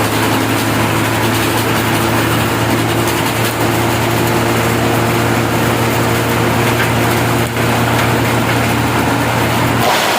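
Large wood chipper's engine running steadily, with a dense, even noise over its note; the engine note changes near the end.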